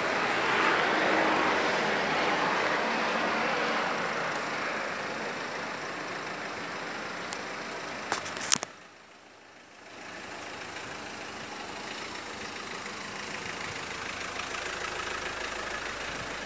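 Nissan Micra hatchback's engine running as the car creeps slowly closer and pulls up alongside. There are a couple of clicks about eight seconds in, and the sound briefly drops away just after.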